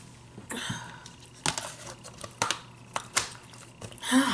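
Clear plastic takeout container lid being handled: a brief crinkle, then a string of sharp plastic clicks and snaps.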